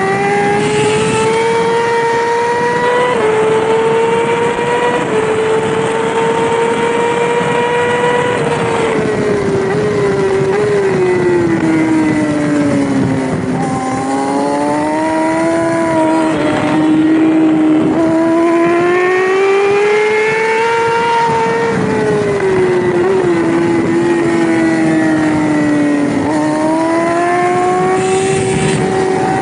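Yamaha R6's 600cc inline-four engine at racing revs, heard onboard. Its pitch climbs for the first several seconds, dropping briefly twice as it shifts up, then falls as the bike slows. It climbs and falls once more and rises again near the end.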